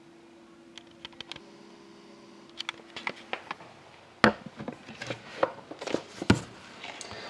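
A few light clicks, then from about four seconds in a run of knocks and taps as a sealed hockey card box is handled on a wooden tabletop.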